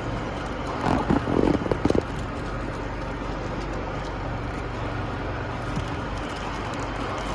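Steady low mechanical hum, with a brief louder burst of pitched sound about a second in.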